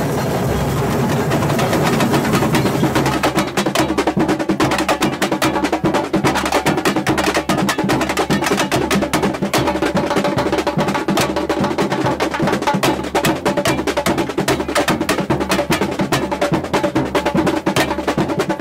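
Samba-style percussion music: drums and a fast, dense run of strokes over a low bass line, getting busier about three seconds in.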